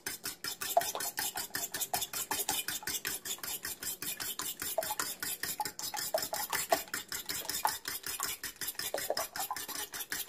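Fork whisking beaten eggs in a stainless steel bowl: the tines clink against the metal sides in a quick, steady rhythm of several strokes a second.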